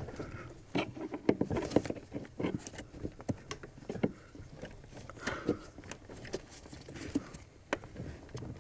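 Irregular small clicks, taps and scrapes of a pry tool against the brake pedal and brake booster push rod as the rod is forced off the pedal.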